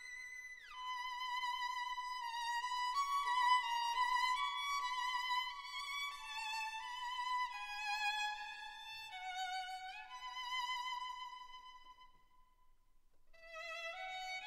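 Background music: a slow violin melody with vibrato and a few sliding notes, breaking off briefly near the end before the next phrase begins.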